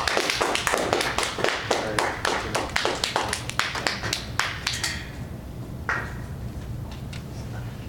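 Applause from a small audience: dense clapping that thins out and stops about five seconds in, followed by a single knock near six seconds, over a steady low hum.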